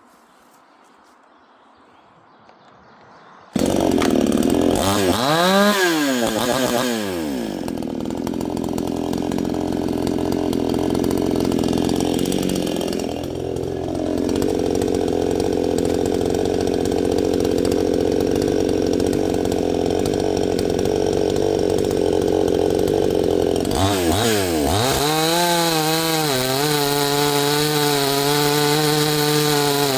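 Two-stroke gas chainsaw starting up suddenly a few seconds in, revving up and down, then cutting through a maple round under steady load for about sixteen seconds. Near the end it runs free at high revs with a clear, steady engine note.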